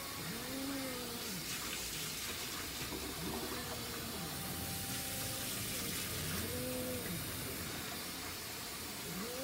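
Cat giving low, drawn-out yowls, each rising, holding and falling over about a second, repeated about every three seconds over a steady hiss.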